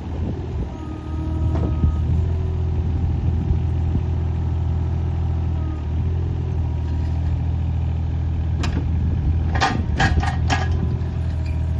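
Takeuchi TB216 mini excavator's diesel engine running steadily, picking up about a second in. Near the end comes a quick run of sharp metal clanks.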